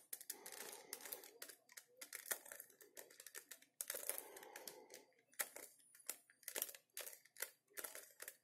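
Plastic Rubik's cube being turned through a move sequence: a faint, irregular run of clicks and rattles as the layers snap round one after another.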